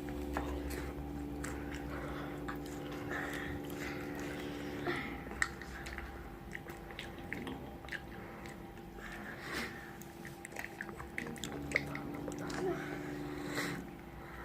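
Close-up chewing and crunching of crispy fried food, with many irregular crisp bites and mouth sounds.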